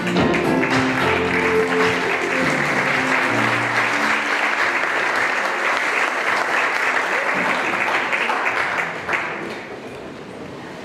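A musical number ends about four seconds in, overlapped by audience applause, which fades away about nine seconds in.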